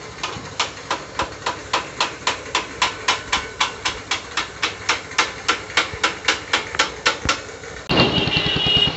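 Rapid, even hammer taps on metal, about four a second, stopping a little after seven seconds in. Near the end a motorcycle engine is heard running.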